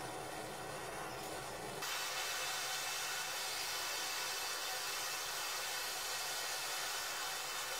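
Steady hiss with no distinct events, a step louder from about two seconds in.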